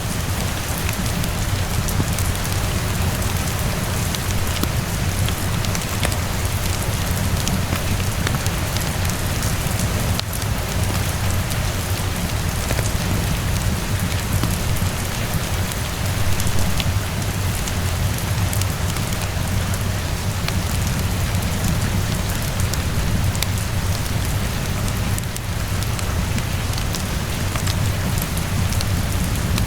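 Steady heavy rainfall with a low rumble underneath, mixed with scattered small pops and crackles of a wood fire.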